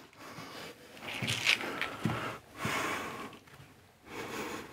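Brick slips being handled and pressed with a sliding motion into combed tile adhesive on a wall: a few short, irregular scraping and rubbing sounds.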